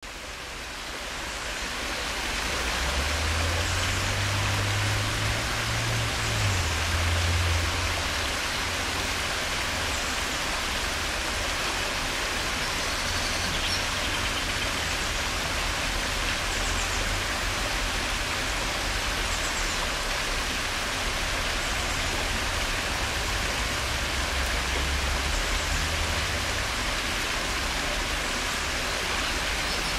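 Steady rushing of running water, an even hiss with a low rumble swelling a few seconds in and again near the end.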